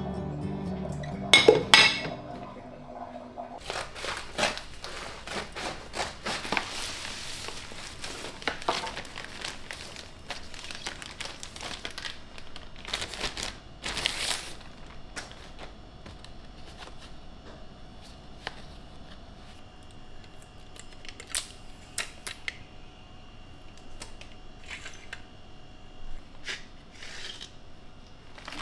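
White ceramic dishes clattering and clinking as they are set into a dish rack, loudest about a second and a half in, followed by a clear plastic bag crinkling as it is handled and opened. After that come only scattered light clicks and taps.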